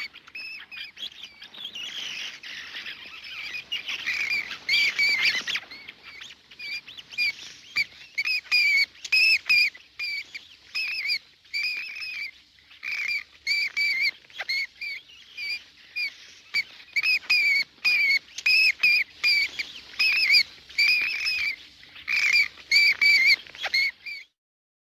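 Bats screeching: a dense, overlapping chatter of high calls for the first five seconds or so, then separate short high screeches repeated about one or two a second, stopping shortly before the end.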